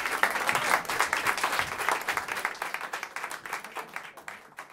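Audience applauding, many hands clapping, the applause starting strong and gradually thinning and fading out toward the end.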